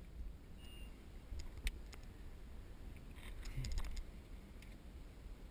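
Handling noise: faint scattered clicks and knocks, with a quick run of several clicks about three and a half seconds in, over a low rumble.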